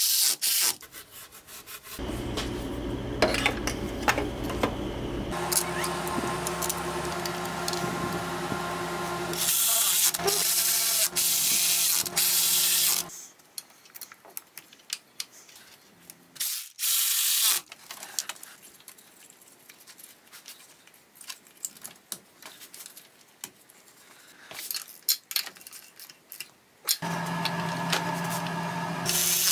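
Cordless ratchet running in a long run from about two seconds in for some ten seconds, driving in water pump bolts, and running again near the end at the water pump pulley. In between come quieter clicks and rubbing of hands fitting engine parts.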